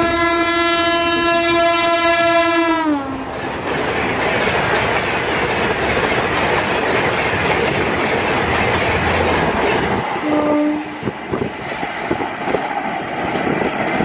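Gatimaan Express's WAP-5 electric locomotive sounding one long horn blast at speed; the horn drops in pitch as the engine passes, about three seconds in. The coaches then rush past in a steady wash of noise and wheel clatter, with a short horn note about ten seconds in, thinning to scattered wheel clicks near the end.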